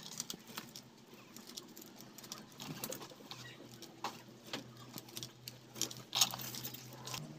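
Faint rustling and small clicks of a wall fan's stator lead wires being handled and twisted together by hand, joining them directly to bypass its faulty thermostat, with a few sharper ticks.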